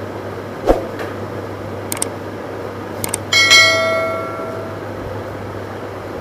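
A subscribe-button sound effect: a couple of quick clicks, then a bright bell chime that rings out and fades over about a second and a half. A single thump comes earlier, under a steady low hum.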